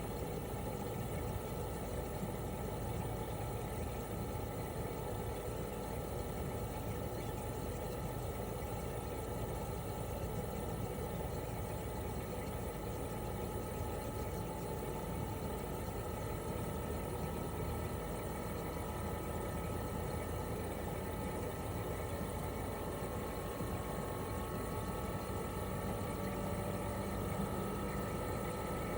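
A Toshiba RAS-285BAD air-conditioner outdoor unit with a twin rotary compressor, running steadily in cooling mode: a compressor hum and propeller-fan noise. In the second half a faint whine rises slowly in pitch.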